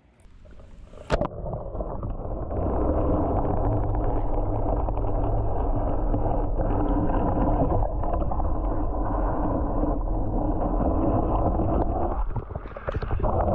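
Muffled, steady rush of river water heard through an underwater camera's waterproof housing, starting with a sharp knock about a second in.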